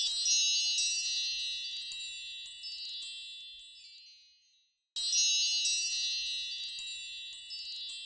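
A bright, tinkling wind-chime sound effect: a cascade of high bell-like tones that rings and slowly fades. It plays twice, the second time starting about five seconds in, and each ring ends in dead silence.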